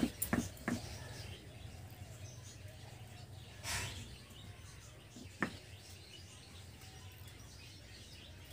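Cookware being handled: a few sharp knocks in the first second, a short scrape about three and a half seconds in, and one more knock about five seconds in. Birds chirp faintly in the background.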